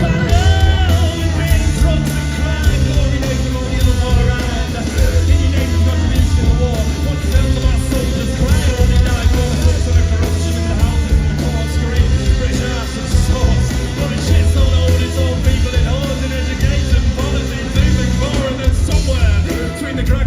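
Loud live rock music from a band on stage, with singing over heavy bass.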